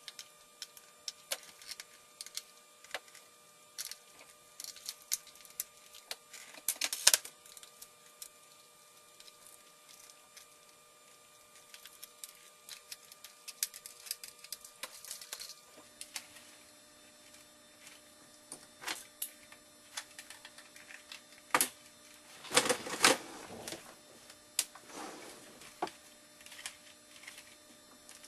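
Irregular clicks and taps of small hard parts being handled, with louder rattling clusters about seven seconds in and again around twenty-two to twenty-four seconds in, over a faint steady hum.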